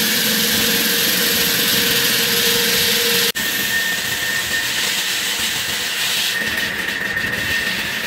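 Large walk-behind concrete floor saw with a big diamond blade running at full speed as it wet-cuts a reinforced concrete slab: a loud, steady machine whine over a rush of noise. The sound drops out for an instant about three seconds in and comes back with a higher whine.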